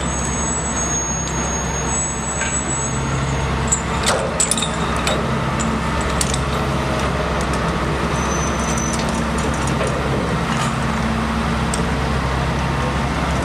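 Diesel engine of a crawler cable excavator running steadily as it hoists and swings its clamshell grab. A few light metallic clinks come about four seconds in.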